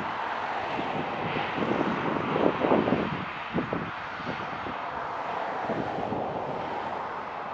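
Airbus A320's twin CFM56 turbofan engines running at takeoff power as the jet speeds down the runway on its takeoff roll: a steady jet noise. Irregular gusts of wind buffeting the microphone rumble over it, loudest about two to three seconds in.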